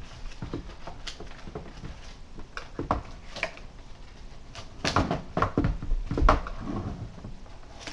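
A plastic Nerf blaster and its cardboard box being handled while the blaster is taken out of the packaging: scattered rustles and knocks, with a cluster of louder knocks about five to six and a half seconds in.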